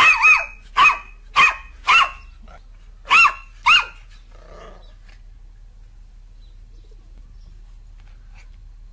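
A black-and-tan puppy barking: about seven short, high-pitched barks in the first four seconds, with a brief pause before the last two.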